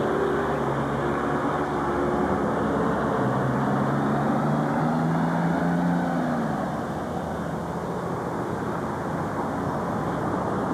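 Vehicle noise: a steady rumble with a low engine hum that slides down in pitch and fades about six and a half seconds in.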